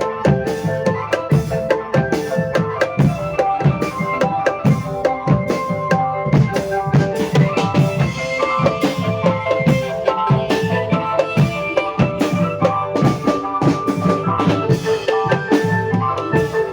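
Percussion-led music: fast, dense drumming under a busy melody of short, ringing pitched notes, cutting off abruptly at the very end.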